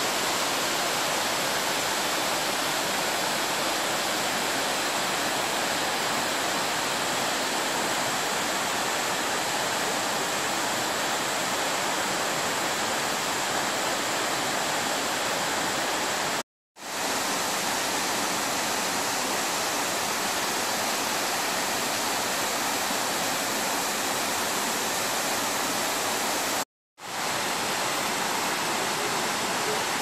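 Waterfall water rushing steadily as it slides down a broad sloping rock slab into a pool. The sound cuts out twice for a moment, about halfway through and near the end.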